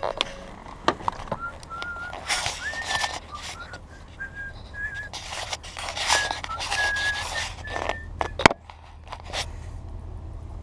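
A man whistling a tune in short held notes, over rustling and handling noise, with a sharp click about eight and a half seconds in.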